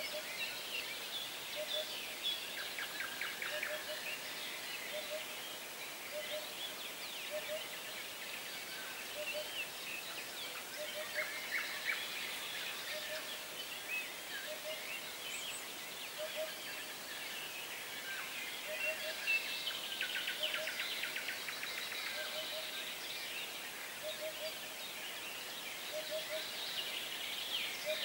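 Many songbirds singing over one another in chirps and trills, with a low short call repeating steadily underneath.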